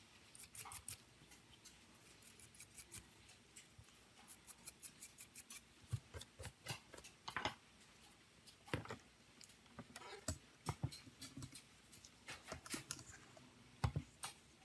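Dry scratching and small clicks as a stiff brush scrubs a smartphone circuit board and small parts are handled, in quick runs of strokes, with a few soft knocks as parts are set down on a silicone mat.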